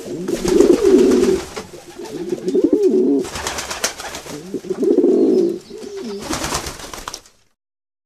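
A flock of feral pigeons cooing in overlapping, repeated phrases, with rushes of flapping wings about three seconds in and again near the end. The sound stops abruptly a little after seven seconds.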